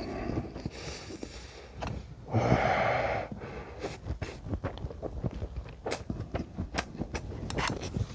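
A person blowing out hard through pursed lips against the burn of very spicy noodles, with the strongest breath about two and a half seconds in. After that come many small clicks from chewing and chopsticks in the noodle tub.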